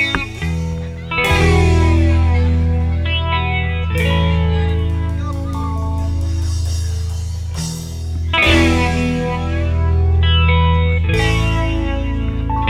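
Background reggae music: an instrumental stretch with guitar chords over a steady bass line.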